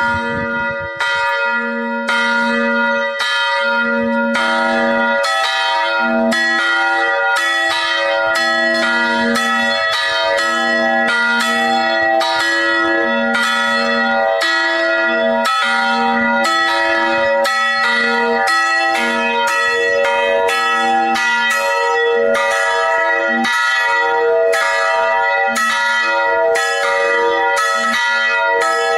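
Two bronze church bells, tuned to e² and b¹, swinging and ringing together for noon, their strokes overlapping in an uneven alternation with long ringing tails. The lower b¹ bell is sounding from the start, and the higher e² bell's strokes join about four seconds in.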